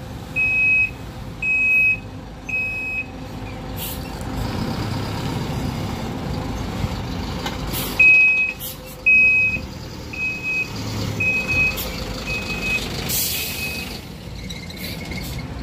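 Diesel city buses idling, with a bus's electronic warning beeper sounding quick repeated beeps, about two a second, for the first three seconds and again from about eight seconds in, growing fainter. Short hisses of released compressed air cut in several times, the loudest near the end.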